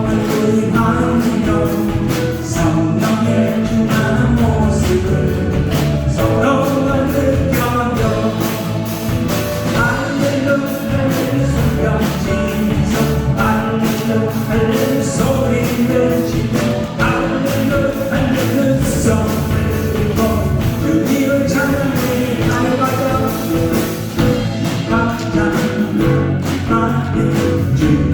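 Live contemporary worship music: a praise band with a steady drum beat, with singing over it.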